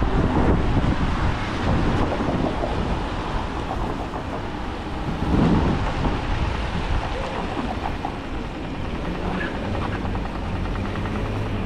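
Gusty wind rumbling on the microphone over the hiss of traffic on wet streets. A low, steady engine-like hum joins in during the second half.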